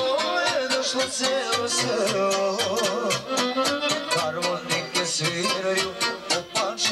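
Live folk dance music from a small band led by an electronic keyboard. An ornamented lead melody with trills and vibrato plays over a steady, driving beat.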